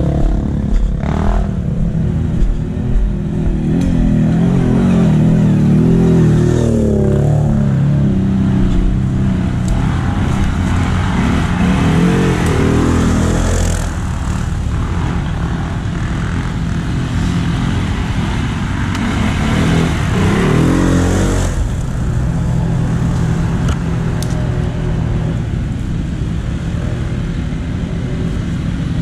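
All-terrain vehicle (ATV) engines running steadily. The revs rise and fall about four seconds in, again around twelve seconds and near twenty seconds, as ATVs climb a steep dirt trail.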